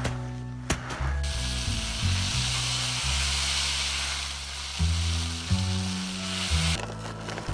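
A steady sizzling hiss, like food frying in a pan, over background music with a slow bass line; the hiss starts about a second in and cuts off abruptly near the end.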